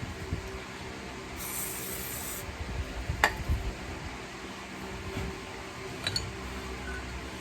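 Workshop handling sounds over a steady background hum: a brief hiss about a second and a half in, a sharp click about three seconds in, and small metallic clinks near the end.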